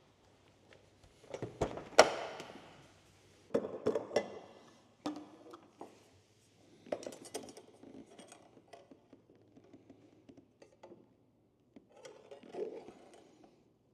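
Scattered knocks, clicks and clinks of handling at a light aircraft's wing fuel tank, as the filler cap is opened and a plastic fuel dipstick is worked in the tank; the sharpest knock comes about two seconds in.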